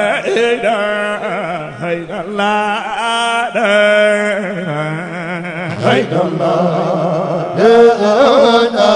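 A man chanting a Sufi zikr (dhikr) into a microphone, amplified, in long wavering melismatic phrases.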